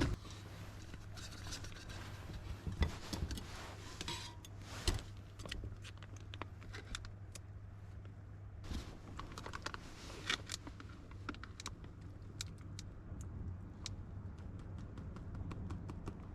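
Scattered small clicks, taps and light metallic clinks, as of small objects being handled, over a low steady rumble.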